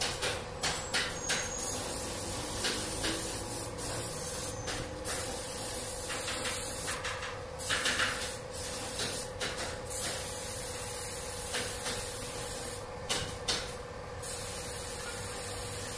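Compressed-air spray gun spraying finish onto a wooden tabletop in a series of hissing bursts, some long and some short, over a steady low hum.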